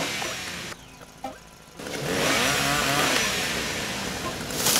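Chainsaw engine starting about two seconds in after a short lull, then running with its pitch wavering up and down as it revs, growing louder and harsher near the end.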